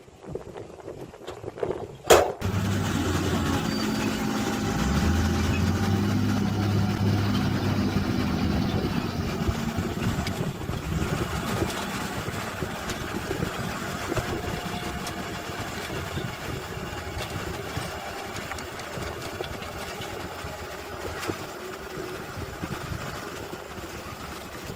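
Diesel engine of heavy earthmoving machinery running, starting abruptly after a sharp click about two seconds in. It is loudest for the next several seconds, then slowly fades.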